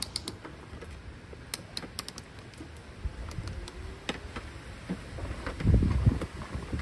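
Irregular light clicks and ticks as a metal clip and cord are worked through the edge of a plastic tarp pool cover, with the tarp crinkling. A louder stretch of low rustling and bumps comes about six seconds in.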